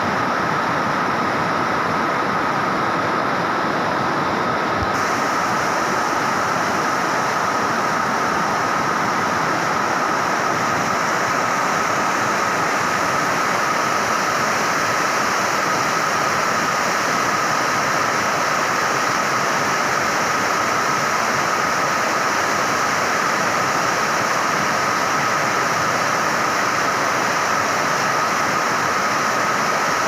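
Waterfall and rapids rushing steadily over rocks: a constant loud roar of falling, splashing water.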